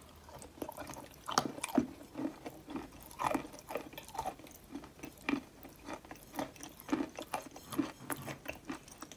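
Close-up chewing of a mouthful of wet clay: a string of short crunches and crackles, about two or three a second, loudest about one and a half seconds in.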